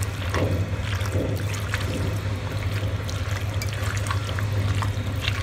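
A bare hand squelching and kneading cubed raw beef liver and onion through a wet turmeric-chili-salt marinade: irregular, sloppy squishes, over a steady low hum.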